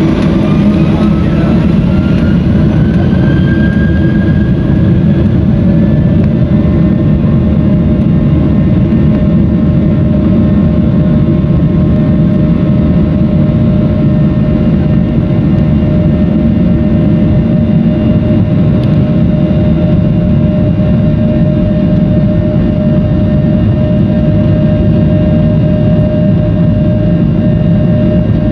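Boeing 737's CFM56 turbofan engines, heard from inside the cabin, spooling up to takeoff thrust: a rising whine over the first few seconds that settles into a steady high tone over a loud, even roar as the plane accelerates down the runway.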